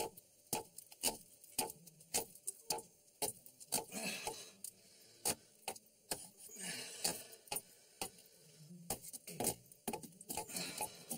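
A tool hammering at an old brick wall to break through it: sharp knocks about twice a second, with short bursts of scraping and crumbling masonry in between as bricks are worked loose.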